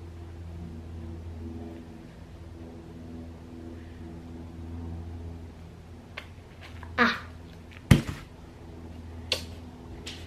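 Steady low electrical-style hum in a small room. About seven seconds in there is a short squeal, then a sharp knock, the loudest sound, and a click a second or so later.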